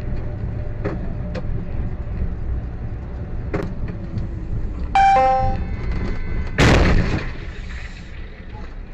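Steady road and engine rumble of a vehicle driving on a highway. About five seconds in there is a brief shrill squeal, and a second or so later a loud crash impact as vehicles collide, after which the rumble dies down.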